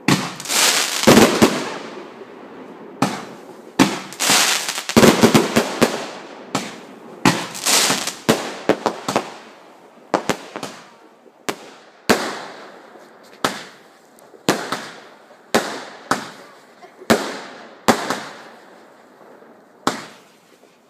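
Fireworks going off in a loud string of bangs: a dense cluster of overlapping bursts for the first several seconds, then a steadier series of single bangs about once a second, each trailing off.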